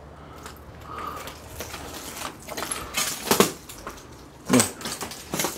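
Footsteps crunching and clattering over debris on a littered floor: a string of irregular sharp steps and knocks.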